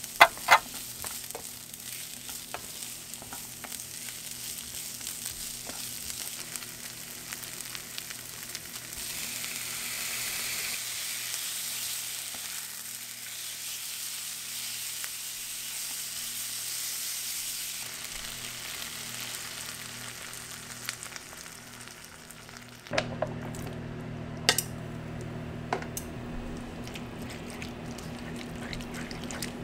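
Chopped onion, leek and garlic sizzling in oil in a frying pan, stirred with a wooden spatula, with a few sharp knocks of the spatula on the pan at the start. About 23 seconds in the sizzle gives way to wetter stirring of spaghetti in sauce, with spatula clicks over a steady low hum.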